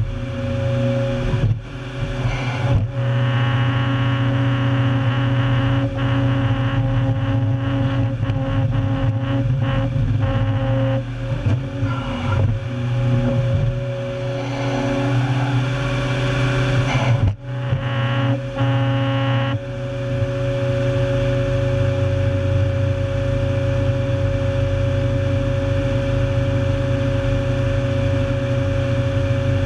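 Heavy diesel engine of a 400-plus-horsepower tracked stump destroyer running steadily under load, while its rotary cutting head grinds through a stump with dense clattering and cracking of wood. About two-thirds of the way through the cutting noise stops, leaving only the steady engine drone.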